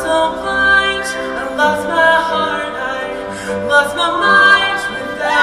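Mixed show choir singing held chords in close harmony.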